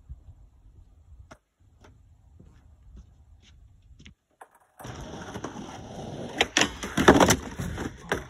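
Scuffs and knocks of footsteps and a skateboard being set down on a wooden pallet deck: faint scattered ticks at first, then about five seconds in a louder, noisy run of scraping with several sharp knocks, loudest about seven seconds in.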